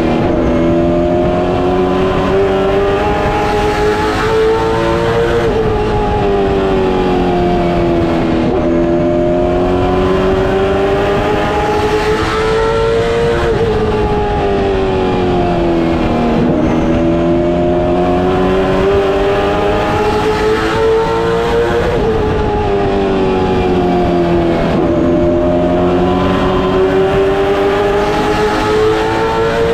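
Late Model Stock race car's V8 engine at racing speed, heard from inside the cockpit. Its pitch climbs for several seconds along each straightaway and drops off into each turn, about every eight seconds.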